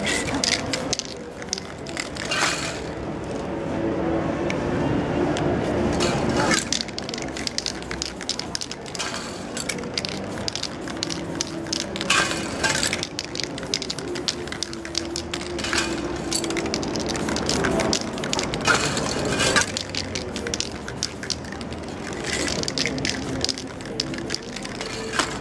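Spray-paint aerosol cans hissing in short bursts, several times, with clicks, knocks and crackles as cans and paper are handled.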